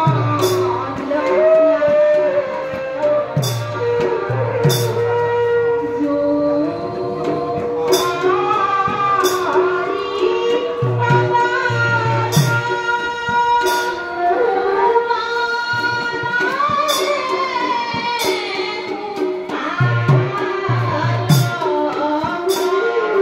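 Assamese devotional folk music: a bamboo flute carries a held, gliding melody over a khol barrel drum beaten in low paired strokes and small hand cymbals struck every second or two.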